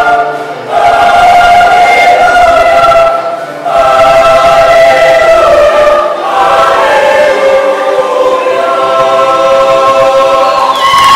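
Mixed choir singing in harmony, in long held chords, with two brief breaks for breath in the first few seconds.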